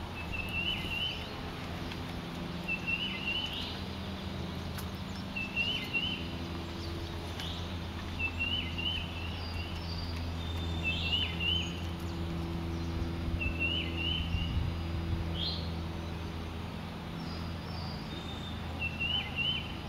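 A songbird repeating a short chirping call every couple of seconds, over a steady low background hum.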